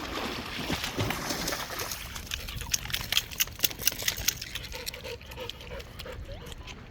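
A dog splashing in water, with a run of short pitched noises from the dog in the last couple of seconds.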